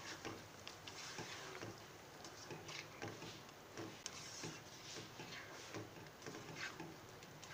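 Faint, irregular clicks and scrapes of a metal spoon stirring a thick yogurt-and-tomato mutton masala in a non-stick pan.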